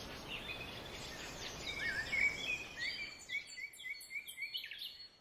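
Rainforest ambience: a soft steady hiss of background noise with birds chirping. The chirps come thicker from about two seconds in, as many short repeated notes.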